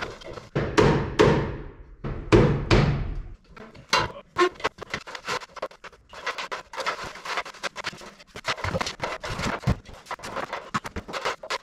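Aluminium extension ladder clanking several times, with ringing knocks, as someone comes down it. Then a long stretch of rattling and scraping as the ladder is shifted along the wooden rafters.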